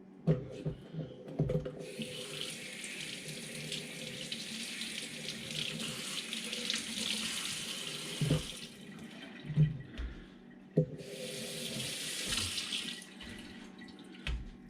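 Kitchen sink tap running into the sink in two runs, a long one from about two seconds in and a short one later, with a few knocks of things being handled in between.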